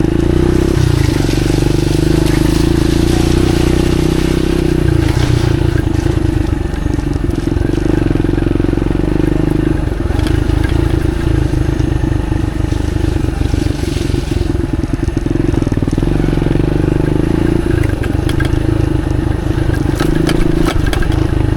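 Motorcycle engine running steadily at low speed on a muddy off-road trail, with a constant low drone and scattered clicks and knocks from the bike.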